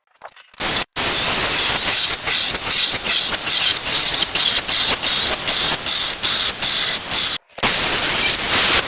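Cordless brushless mini chainsaw cutting through wood, a loud hissing rasp of chain in the cut. It breaks off briefly twice, just after the start and about seven and a half seconds in.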